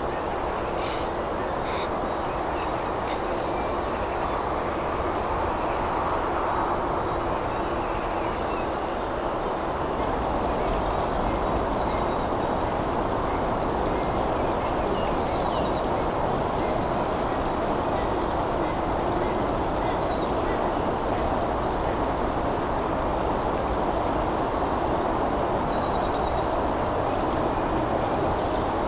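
Small birds singing and chirping in the trees over a steady rushing background noise.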